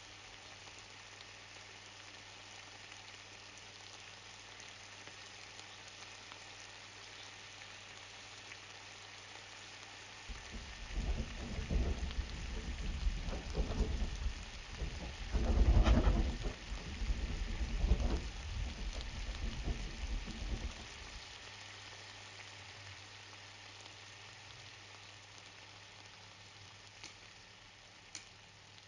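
Foley rain made with household items: a steady hiss, with a rumble of thunder that swells about a third of the way in, peaks midway and dies away after about ten seconds. A few sharp ticks come near the end.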